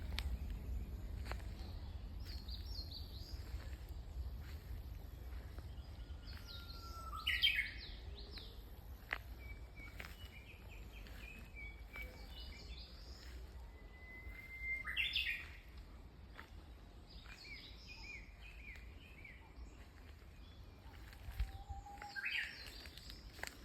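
Japanese bush warbler (uguisu) singing three times, each song a long held whistle ending in a quick warble. Fainter chirps of small birds come in between, over a steady low rumble.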